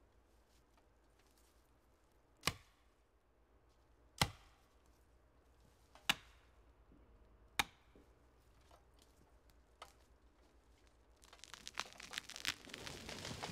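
Four sharp axe blows, a second and a half to two seconds apart, driving a felling wedge into the saw cut of a standing tree. About eleven seconds in, crackling and rustling build as the tree begins to break and topple through the branches.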